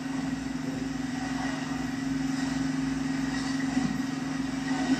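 A small engine running steadily with a constant low hum, with a couple of faint knocks near the end.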